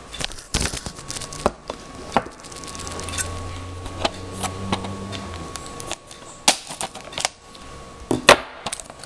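Plastic DVD keep cases being handled and opened on a table: a run of irregular clicks, taps and knocks, with two louder knocks in the second half.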